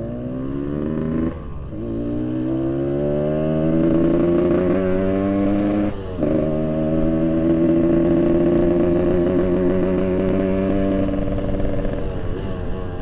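Yamaha RX-King's 135cc two-stroke single-cylinder engine pulling the motorcycle up through the gears. The pitch rises, drops at a gear change just over a second in, climbs again and holds, breaks at another shift about six seconds in, then holds steady before falling off near the end.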